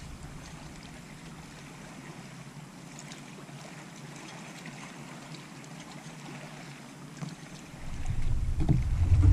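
Water lapping and trickling against the bass boat's hull, with a few faint ticks. Near the end a low rumble rises sharply and grows loud.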